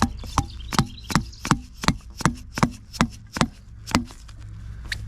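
A quick series of about eleven sharp knocks, roughly three a second, as a barbed coupling is worked into the cut end of a poly sprinkler pipe, followed by one fainter knock near the end.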